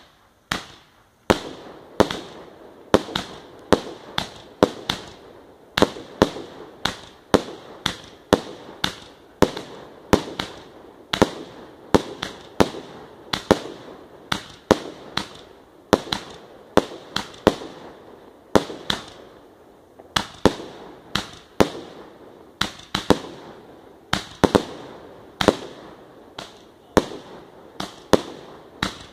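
Cienfuegos 'Gran Vendimia' 300-shot fireworks cake firing in a steady string of sharp bangs, about one and a half a second, each with a short fading tail.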